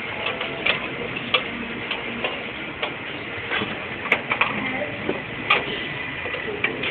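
Irregular plastic clicks and taps from hands handling the parts of an opened Canon iP1980 inkjet printer, over a steady background hiss.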